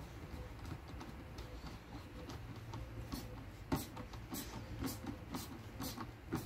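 Hand screwdriver clicking as a screw is driven into a door top frame: a run of sharp clicks about twice a second, starting about three seconds in, over a low steady hum.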